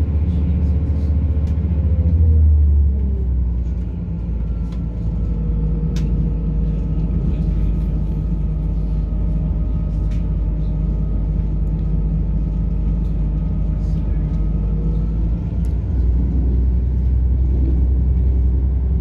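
British Rail Class 170 diesel multiple unit heard from inside the carriage while running, its underfloor six-cylinder MTU diesel engine and track noise making a steady low drone. The engine note swells and then drops away about three seconds in, and builds again near the end.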